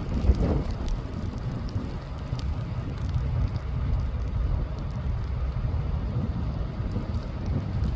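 Strong wind buffeting the microphone in a heavy snowstorm: a steady, uneven low rumble, with faint scattered ticks of blowing snow.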